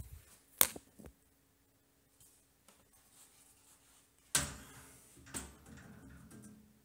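Heavy steel floor grate dropped into a steel wire dog crate: one sharp metal clank a little over half a second in with a couple of lighter clicks after it, then a second, longer clatter about four and a half seconds in and one more knock about a second later as the grate is settled in place.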